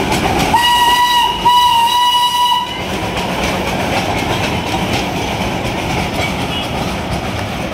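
Darjeeling Himalayan Railway narrow-gauge steam locomotive blowing its whistle, a short blast then a longer one of about a second, followed by the steady rumble and clatter of the coaches rolling past.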